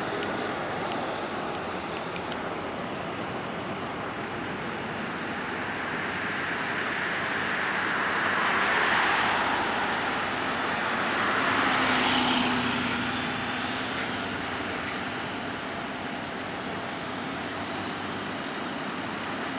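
Road traffic noise: a steady hiss of tyres and engines, swelling as vehicles pass about halfway through and again a few seconds later, the second with a low engine hum.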